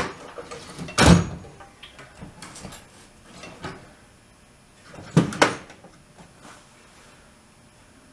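Metal hand tools clanking as a wrench is fetched: one loud clank about a second in, small clicks and rattles, then two sharp clanks in quick succession about five seconds in.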